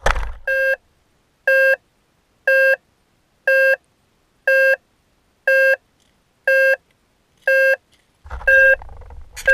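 Electronic beeping from the crashed Blade 350 QX quadcopter: one short, steady-pitched beep every second, nine in all. Footsteps crunch on gravel near the end as someone walks up to it.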